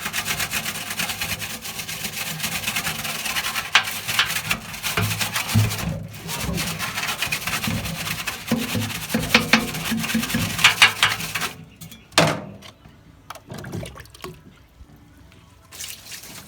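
Scrubbing grime off a plastic washing machine drum baffle: a dense, continuous run of rubbing strokes that stops about eleven and a half seconds in, followed by a few light knocks and handling sounds.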